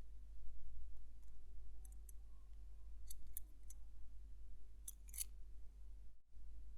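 A few small, sharp metallic clicks of watchmaker's tools on tiny watch-movement parts during assembly, in two clusters, over a steady low hum.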